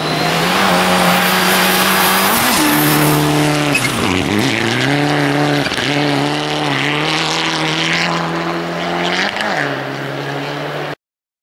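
Mitsubishi Lancer Evolution rally car's engine running hard at high revs, its pitch dipping and climbing again several times as it shifts and lifts through the stage, with a loud hiss of tyres on snow at first. The sound cuts off suddenly near the end.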